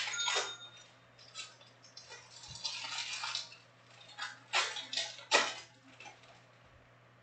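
Foil trading-card packs and cards being handled, crinkling and rustling in short, irregular bursts with a longer crackling stretch in the middle.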